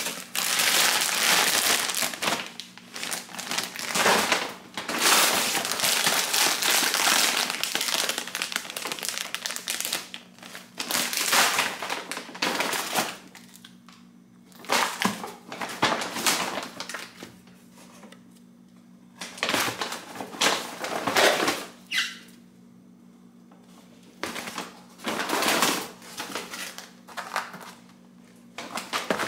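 Plastic grocery packaging and a paper grocery bag rustling and crinkling in bursts as items are pulled out and handled, with short pauses between. A faint steady low hum runs underneath.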